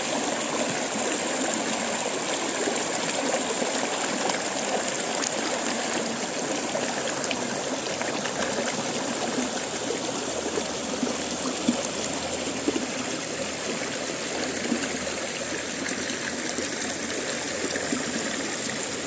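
River water flowing and trickling over rocks, a steady rushing with a couple of brief sharper moments about halfway through.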